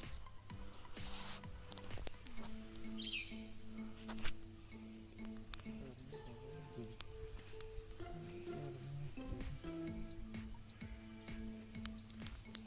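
Insects chirring in a steady high-pitched drone, with faint music of changing notes beneath and a sharp click about four seconds in.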